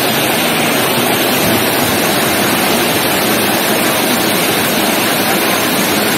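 Floodwater pouring over a dam spillway and churning in the channel below: a loud, steady rushing of water. The dam is running high after days of heavy rain.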